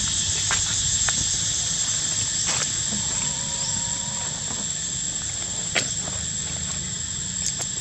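Steady high-pitched drone of insects, with a low rumble beneath and a few sharp clicks, the loudest near the end.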